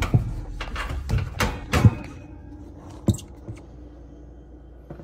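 Sharp metallic clunks and knocks from the oven's broiler drawer and pan being handled, four in the first two seconds and one more about three seconds in, followed by a low steady hum.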